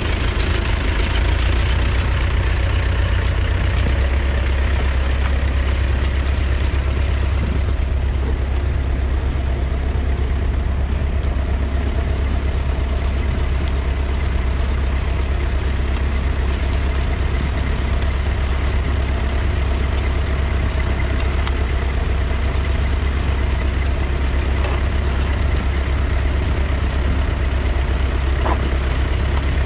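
McCormick 434's 2.5-litre four-cylinder diesel tractor engine running steadily under load while ploughing.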